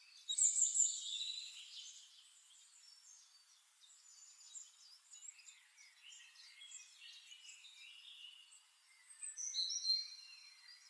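Faint, high-pitched bird chirps, busiest in the first second and again near the end.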